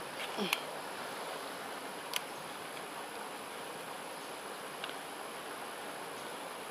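Steady outdoor background hiss with a thin, high, steady insect drone over it. A few sharp clicks stand out, the loudest about half a second and about two seconds in.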